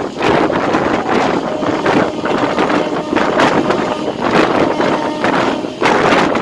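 Wind buffeting the microphone held out of a moving passenger train, gusting unevenly over the steady running noise of the coaches on the track.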